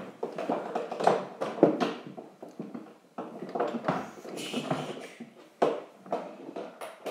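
Irregular knocks, taps and scuffling as a child shifts about in a plastic ride-on toy car.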